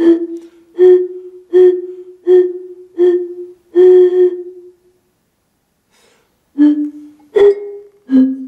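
Tuned glass bottles blown across their mouths, giving hollow, breathy notes. There are five quick notes on F, the last held a little longer. After a pause of about two seconds come three single notes: D, a jump up to G, and back down to C.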